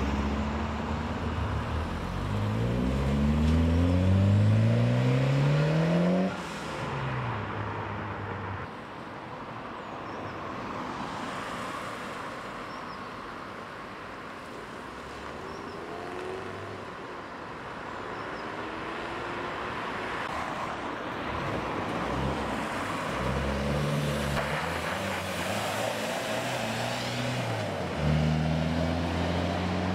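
Classic cars and 4x4s pulling away one after another, their engines rising in pitch as they accelerate through the gears. A loud, low engine pulls away near the end.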